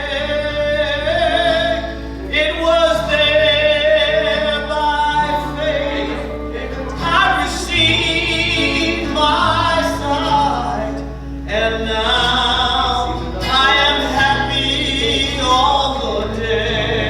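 A gospel hymn sung over instrumental accompaniment, the voice holding long notes with vibrato.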